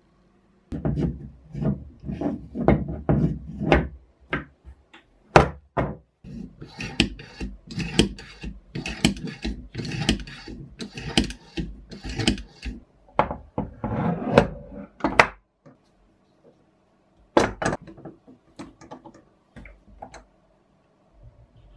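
Restored Sanbri bottle corker being handled and worked: its brass jaws and steel lever click, knock and rattle against each other and the wooden tabletop. A dense run of clicks and knocks, then after a short pause a few scattered clicks near the end.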